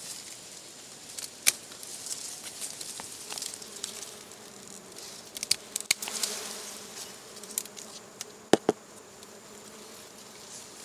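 Dwarf honeybees (Apis florea) buzzing in a steady hum around their comb as it is cut free, with several sharp clicks and snaps, the loudest about one and a half seconds in and near the end.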